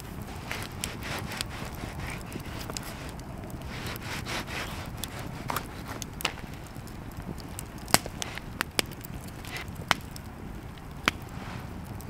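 Wood crackling and snapping: a low rustling background with irregular sharp pops, the loudest few in the second half.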